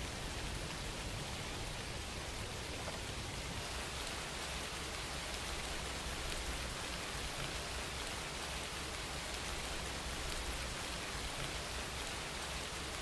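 Steady rain falling, a constant hiss with the patter of individual drops.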